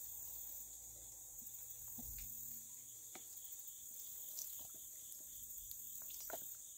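Steady high-pitched chorus of insects chirping, with a few faint scattered clicks and ticks.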